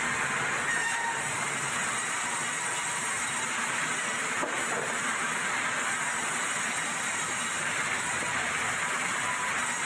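Large vertical band saw running and cutting through a log: a steady hiss with no pauses.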